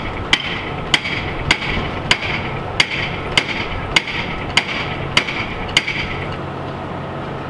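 Steady hammering, roughly a blow every 0.6 seconds, each strike with a short ringing tone. The blows stop about six seconds in, and a steady low hum runs underneath.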